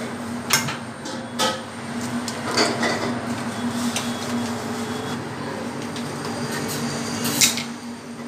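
Eggs tapped and cracked on the rim of a stainless steel mixing bowl, several sharp knocks a second or so apart, over a steady hum.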